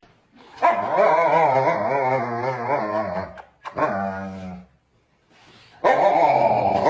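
A dog vocalizing in long calls whose pitch wavers up and down: one of about three seconds, a short one, then another starting near the end.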